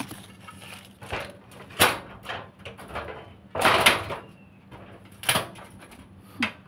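Leaves and twigs of a small citrus tree rustling and brushing as hands push in among the branches, in several short bursts, the longest about four seconds in.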